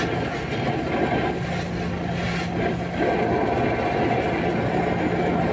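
Brazing torch flame rushing steadily as it heats a refrigerant pipe joint to free an air-conditioner compressor, with a steady low hum underneath.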